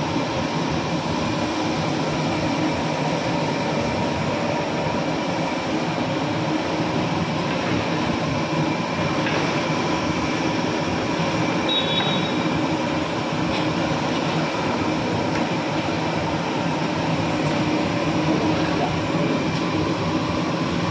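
Steady, unbroken roar of a high-pressure LPG burner firing under a large pot of milk.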